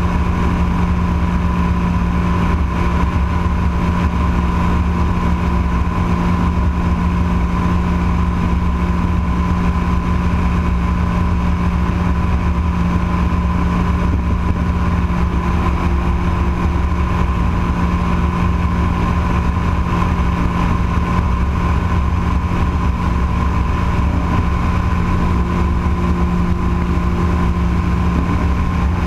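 Rotax 912 flat-four engine of a P&M Quantum flexwing microlight trike running steadily at climb power just after take-off, a constant drone with wind rushing over the microphone.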